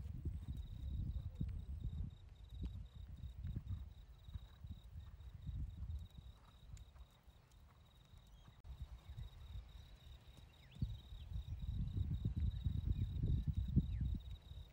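Muffled hoofbeats of a horse trotting on a sand arena, coming and going in loudness, with a thin steady high insect trill behind them.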